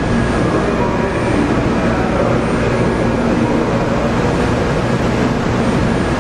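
Steady, loud rumbling noise of a railway station platform, with a faint steady whine in it.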